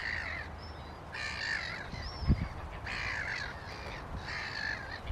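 Birds calling: four calls, each about half a second long and spaced about a second apart. A short low thump comes a little over two seconds in.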